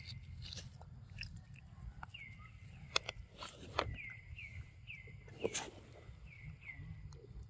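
Monkeys handling and eating pieces of soft yellow fruit, with scattered rustles and clicks. Behind them, a short falling chirp repeats about twice a second.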